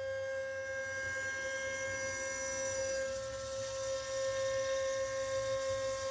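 6040 CNC router spindle running, a steady whine with a stack of higher overtones over a low rumble.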